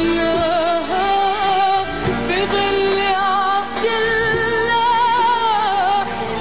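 Arabic pop song: a woman's voice sings a wavering, ornamented melody over a full instrumental backing.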